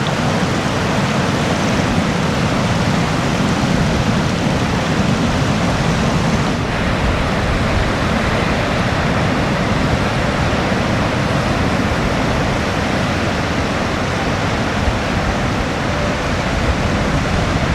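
Sea surf breaking and washing onto the beach, a steady rush of water.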